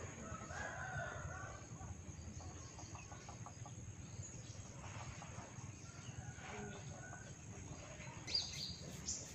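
Chickens clucking in the background, with faint calls about a second in and again a few seconds later. A short, sharp snap near the end is the loudest sound.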